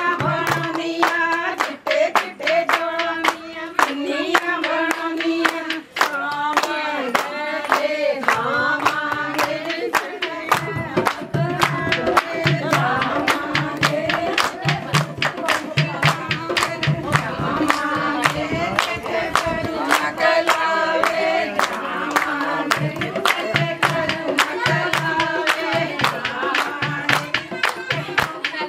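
Devotional song: voices singing a wavering melody over instrumental accompaniment, driven by a fast, steady beat of sharp clicks and a pulsing low drum.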